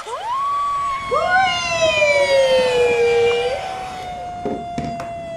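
Two voices howling in long wailing glides, mimicking a storm wind. One rises sharply at the start and then holds, slowly sinking in pitch. The other joins about a second in, swoops up and then down, and breaks off after about three and a half seconds.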